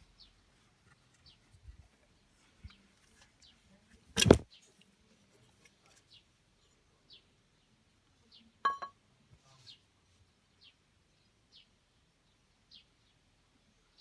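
A small bird chirping in the background, one short falling chirp about every second. A loud sharp knock comes about four seconds in, and a ringing metallic clink a little before nine seconds.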